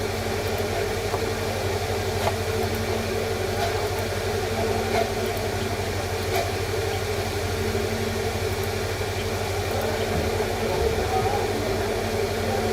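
Steady low mechanical hum with even background noise, and faint clicks now and then.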